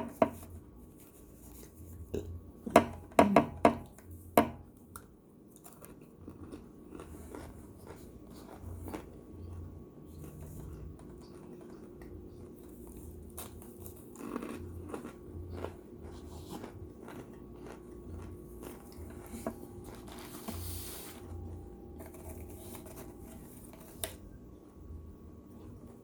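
A person biting and chewing cooked cornstarch chunks: a few loud, sharp crunches about three to four seconds in, then softer chewing and crunching.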